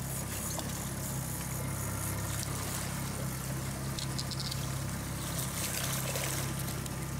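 Boat engine running steadily at low speed, with water splashing as a hooked salmon thrashes at the surface beside the boat.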